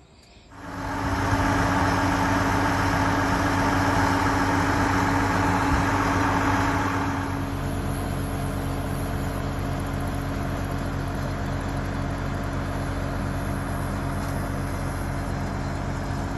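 Mobile crane's engine running steadily under a lift. It runs louder and harder for the first several seconds, then eases to a lower, steady run about seven seconds in.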